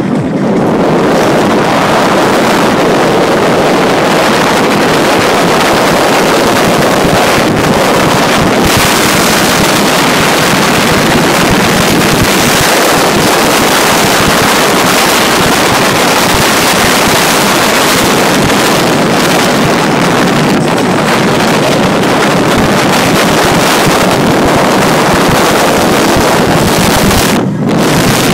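Loud, steady wind noise buffeting a phone's microphone as the phone rides exposed on the outside of a moving car, with a brief dip near the end.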